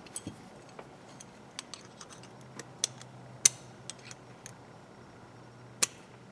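Light, irregular metallic clicks and taps of small steel parts being handled while a 1/4-inch ratchet head is pried at and its retaining pin pressed down. Three sharper clicks stand out, two around the middle and the loudest near the end.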